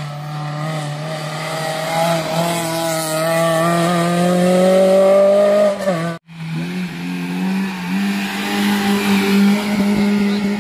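Historic rally cars' engines accelerating hard up a hillclimb road. The first engine note climbs steadily for about six seconds and breaks off abruptly. A second car's engine follows, held at high revs.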